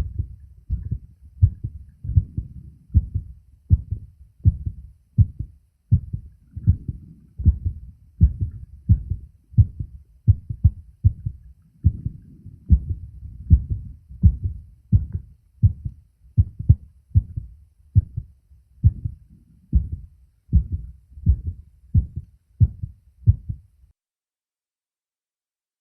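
A man's heartbeat picked up by a phone microphone held to his chest, beating steadily about 80 times a minute with each beat a low thump. The recording cuts off about 24 seconds in.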